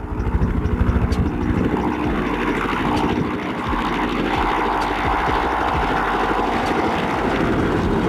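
Bell UH-1 'Huey'-type helicopter flying low: the rapid beat of its two-bladed main rotor over a steady turbine whine. The rotor beat is strongest in the first couple of seconds.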